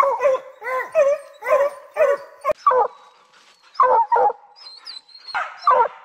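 Bear hounds bawling tree-barks at a treed bear: a quick string of short, loud bays, about two a second, with a pause of under a second near the middle.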